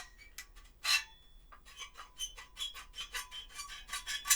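Old metal press worked by hand to make a Foley squeak: a scrape about a second in, then a run of short metallic rubbing squeaks, about three a second, growing louder toward the end.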